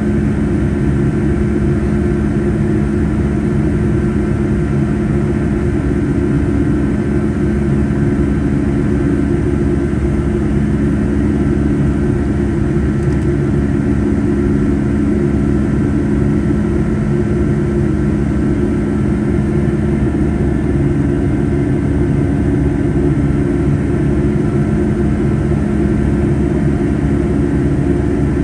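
Jet engines of a Boeing 757-200 heard from inside the cabin in flight: a loud, steady drone with a few constant tones, unchanging throughout.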